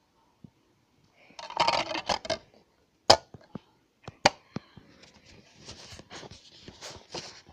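A DVD disc being loaded by hand into a portable DVD player: a burst of rustling handling noise, then two sharp plastic clicks about a second apart as the disc goes onto the spindle and the lid shuts, followed by light clicks and scraping.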